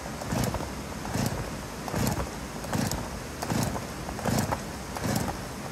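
Two-stroke chainsaw being pull-started: about seven quick, even yanks on the recoil starter cord, each a short whirring crank of the engine, without the engine catching.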